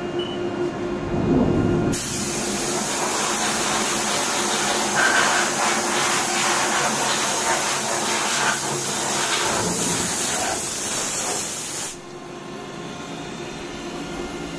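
Compressed-air blow gun hissing as it blasts coolant and chips off a freshly machined hub inside a CNC machining centre, starting about two seconds in and cutting off sharply about ten seconds later. The machine's steady hum with a few low tones runs underneath.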